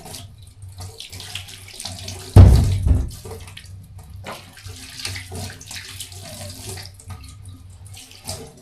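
Kitchen tap running unevenly as produce is rinsed under it, the water splashing on and off. A loud low thump about two and a half seconds in.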